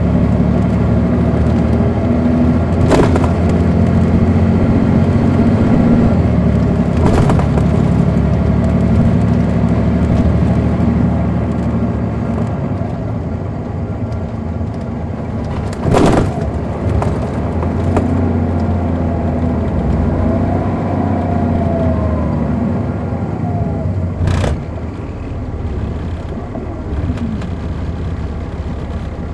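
Caterpillar C13 ACERT diesel engine of a 2006 MCI D4500CL coach, heard from on board while the bus is under way: a steady low drone, with a whine that rises and falls a few times in the second half. A few sharp knocks come through about 3, 7, 16 and 24 seconds in.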